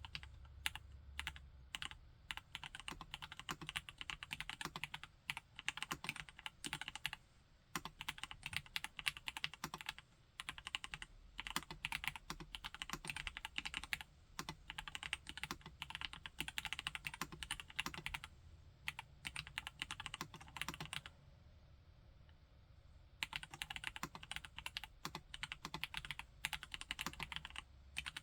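Typing on a Vortex Model M SSK mechanical keyboard with Gateron G Pro Brown tactile switches: fast, steady runs of keystrokes broken by brief pauses, with a longer pause about three quarters of the way through.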